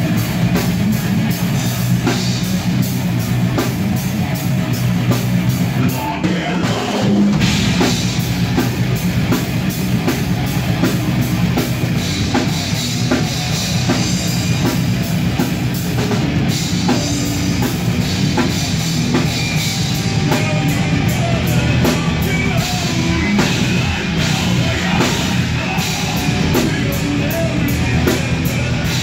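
Heavy metal band playing live in a rehearsal room: fast drumming on a full drum kit under distorted electric guitar and electric bass, loud and continuous.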